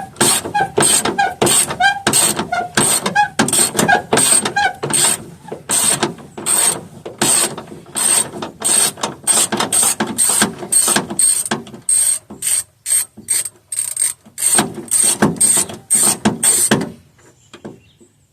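Hand socket ratchet on a long extension clicking in quick repeated back-strokes, about two or three a second, as it backs out a 10 mm fender bolt. The clicking stops about 17 seconds in, when the bolt comes free.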